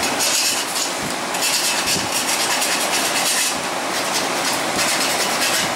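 Steel hand file rasping back and forth in a rectangular slot cut in square steel tubing, cleaning up the cut edges: a loud, continuous scraping with a rough, rhythmic grain.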